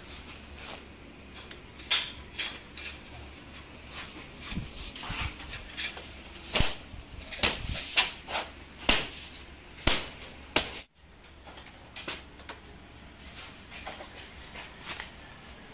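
Irregular clicks and knocks of cover strips and L-capping being pressed and snapped onto the top rails of a modular office partition frame, busiest in the middle and sparser near the end.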